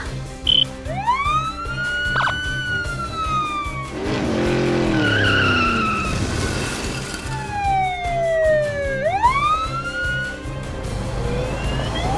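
Animation sound effects: a few slow siren-like glides, one rising and then sinking away over a few seconds and another falling and then sweeping sharply back up, over background music.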